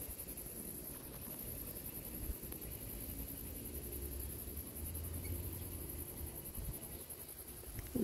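Insects chirring steadily in a high, fine pulsing drone, over a faint low rumble.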